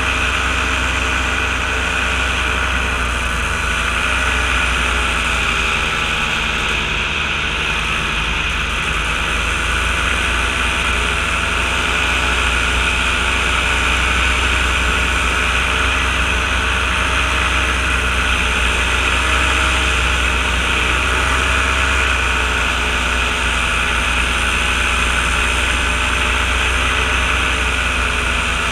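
Small ultralight aircraft's engine droning steadily in cruise, mixed with heavy wind rush over the microphone from the open cockpit.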